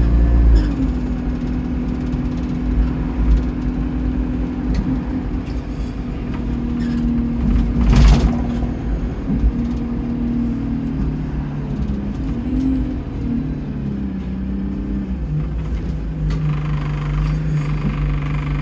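Go-Ahead London bus SE64's engine running on board while the bus is under way; the bus has a leaking turbo. The engine note holds steady and then drops in pitch about three-quarters of the way through. A single knock about eight seconds in is the loudest moment.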